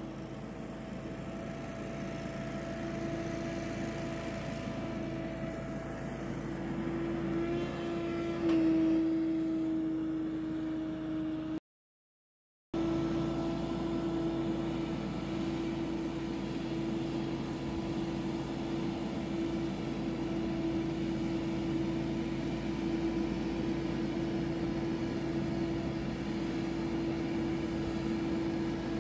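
Billy Goat P2000 stand-on leaf blower running steadily, an engine and fan drone holding one pitch. It gets louder about a third of the way in, cuts out completely for about a second just before halfway, then carries on unchanged.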